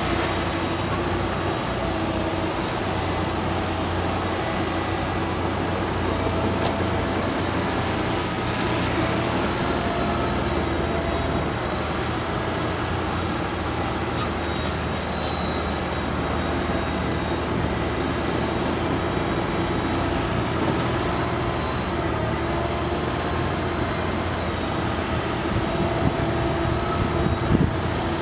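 Earthmoving machinery engines running steadily with a constant hum, a few short knocks near the end.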